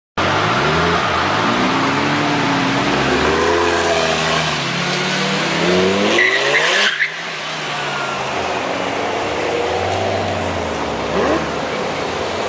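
Lamborghini sports-car engines revving hard as the cars pull away, the pitch climbing in repeated rising sweeps. About seven seconds in the sound drops suddenly to a quieter, lower engine note.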